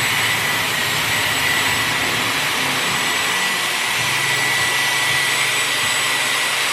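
Dyson Airwrap hair styler running: a steady rush of air from the curling barrel with a high, even whine from its motor.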